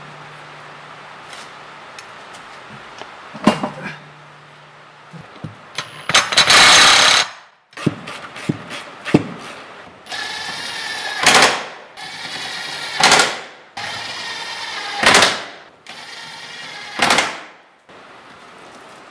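Cordless impact wrench run in five bursts, each spinning up and hammering as it drives a bolt home. The last four come about two seconds apart. A few metallic clicks come before the first burst.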